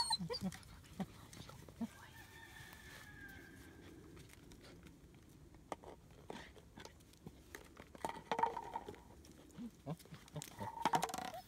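German Shepherd puppies giving short whines and yips, a few near the start, a burst about eight seconds in and another just before the end, with scuffling and light ticks of play and handling between them.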